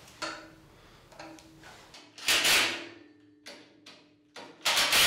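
Cordless drill driving screws into the aluminium gantry beam of a CNC router kit, in several short sudden bursts, the loudest about two seconds in and near the end, with a faint steady hum between them.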